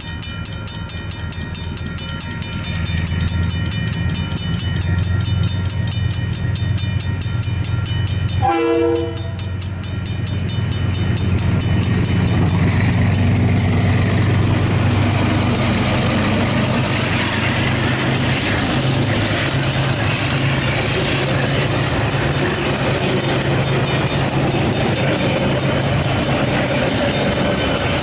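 Level-crossing alarm bells ringing rapidly and steadily while a KiwiRail coal train approaches. The diesel locomotive's engine hum and the wheel rumble grow louder from about ten seconds in, until the wagons are rolling through the crossing.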